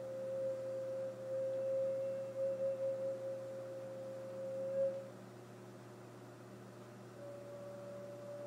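A transverse flute holding one long, steady note for about five seconds, wavering slightly near its end. After a pause of about two seconds, a second, slightly higher note is held.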